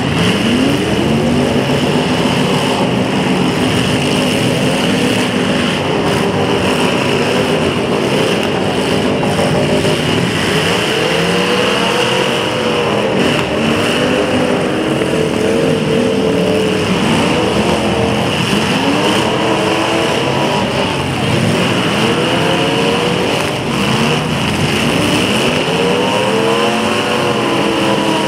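Several demolition derby cars' engines revving hard, their pitches climbing and falling over and over as they overlap, with a few knocks mixed in.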